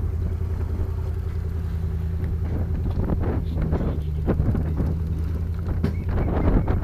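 Steady low drone of a vehicle engine, with wind buffeting the microphone and growing gustier from about three seconds in.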